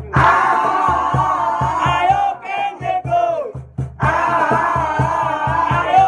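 A group of people shouting a chant in unison, with long held yells at the start and again from about four seconds in, and shorter chanted syllables between them, over a steady beat of about four thumps a second.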